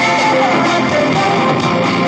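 Loud, steady music led by guitar.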